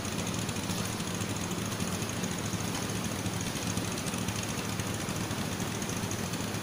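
An engine running steadily with an even low hum, over a constant background hiss.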